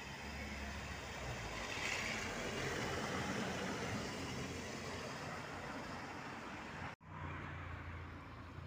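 White passenger minibus driving past on a wet, slushy street: its engine and the hiss of its tyres swell as it goes by, then fade. About seven seconds in the sound cuts out for an instant and gives way to a steady low traffic rumble.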